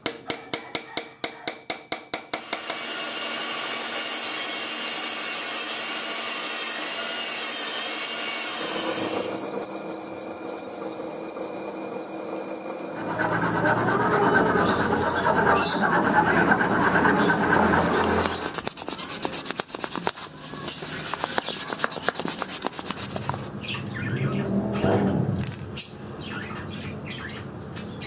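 A hammer taps quickly about a dozen times in the first couple of seconds, driving a knife tang into its wooden handle. Then comes a long run of coarse scraping and rubbing as wood is worked down into sawdust.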